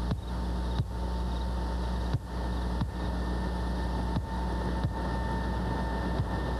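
SR-71 Blackbird's twin Pratt & Whitney J58 jet engines running at low power as the aircraft taxis: a steady low drone with a thin steady whine above it, broken by several brief dips in level.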